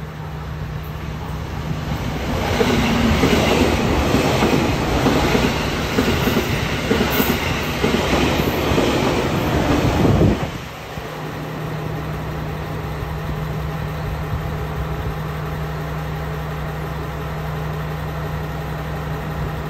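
Limited express electric train passing close by: a loud rush of wheel and rail noise with clattering over rail joints, building from about two seconds in and cutting off sharply about halfway through. After that, a steady low hum continues.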